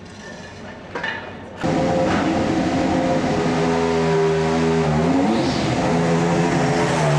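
Mercedes Formula 1 car's V6 turbo-hybrid engine running at a steady idle. It comes in suddenly and loud about a second and a half in, and its pitch dips briefly and picks up again about five seconds in. Before it, quieter garage sounds with a few clicks.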